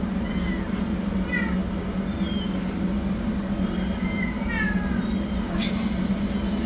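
Kittens mewing repeatedly in short, high-pitched cries that mostly fall in pitch, over a steady low hum.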